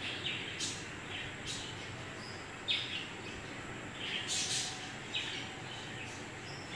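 Small birds chirping, short separate chirps about once a second over a steady low background hiss.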